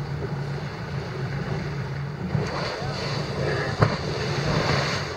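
Two 110 hp four-stroke outboard motors idling steadily, with wind on the microphone. A single sharp knock nearly four seconds in.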